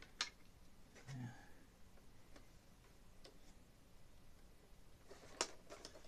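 Faint, scattered clicks and taps from multimeter test probes being handled against a metal chassis plate and wire connector, the sharpest click near the end.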